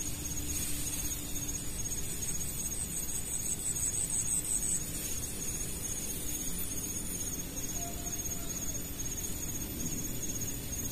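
Insects, crickets by the sound, trilling: a steady high-pitched chirring, with a faster pulsed trill from about half a second in to nearly five seconds in, over a low background rumble.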